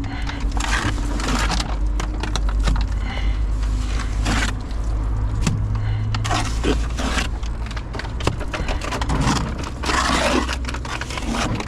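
Irregular scraping and knocking of construction work over a steady low hum.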